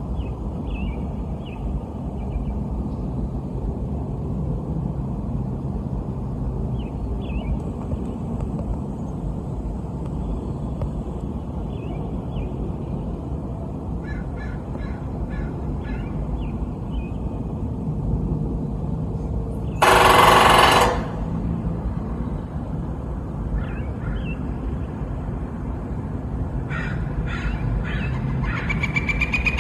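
A bird giving short, faint chirps in small clusters over a steady low rumble. A loud burst about a second long cuts in about two-thirds of the way through.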